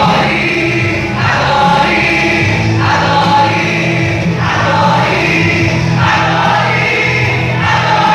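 A youth choir sings a Pentecostal gospel praise song in Portuguese, in short repeated phrases over steady instrumental accompaniment.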